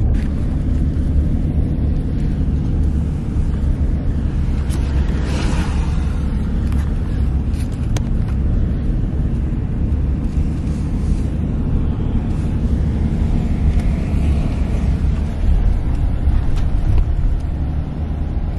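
Steady low rumble of a car's engine and tyres on the road, heard from inside the cabin while driving, with a brief hiss about five seconds in.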